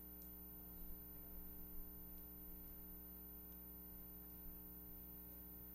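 Near silence with a steady electrical mains hum and a few faint, scattered ticks.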